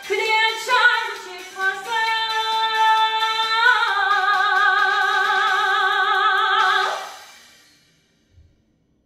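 A woman singing a trot song, moving through a few short notes into a long held final note that takes on a wide vibrato partway through and cuts off about seven seconds in.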